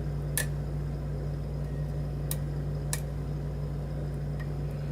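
Lock picking on a challenge lock: three sharp, brief clicks of the pick and pins, over a steady low hum.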